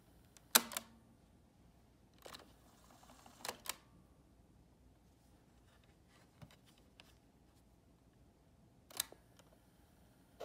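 Sharp mechanical clicks and clunks of a Marantz PMD201 portable cassette recorder's keys and mechanism, picked up through its own internal microphone over faint tape hiss: a loud click about half a second in, a quick pair around three and a half seconds, another near the end. Right at the end the background hiss jumps up.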